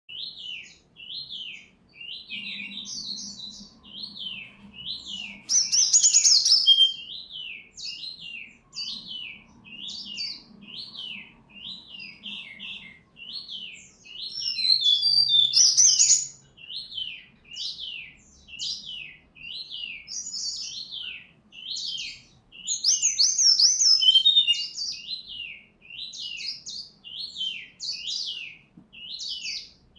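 A sikatan rimba dada coklat (SRDC), a jungle flycatcher, singing in full voice. A short dipping-and-rising whistle repeats about every 0.7 seconds, broken by louder, richer song phrases three times.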